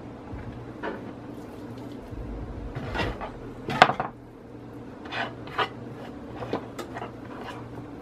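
Hands mixing diced raw chicken and sliced garlic in a glass baking dish: irregular light knocks and rubbing against the glass, the loudest about three to four seconds in.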